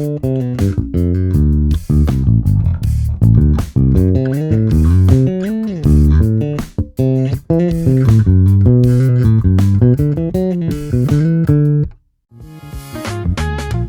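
Warwick Corvette $$ NT 5-string electric bass played solo, a run of quick plucked notes and slides. It stops about twelve seconds in, and different music begins near the end.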